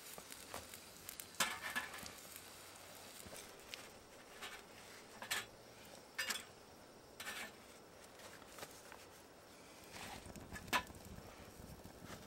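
A few light, scattered metallic clicks and taps as a hinged wire toasting rack holding a slice of bread is handled and set down on a small folding stainless-steel wood stove. The clearest tap comes near the end.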